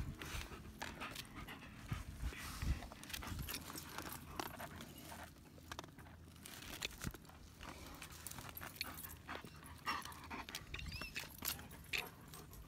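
German Shepherd dogs panting, with irregular scuffs and clicks of footsteps on rock and dry leaves.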